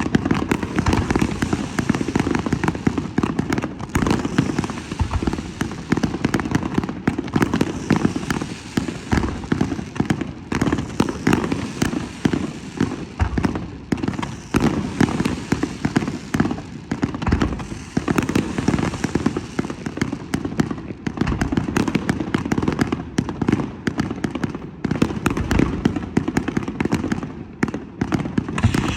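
Aerial fireworks display: a dense, continuous run of overlapping bangs and crackling with no pause.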